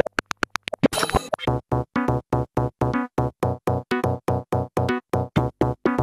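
Electronic music: a sampled sound chopped into rapid stuttering pulses, very quick clicks at first, then settling into a steady beat of about five pulses a second.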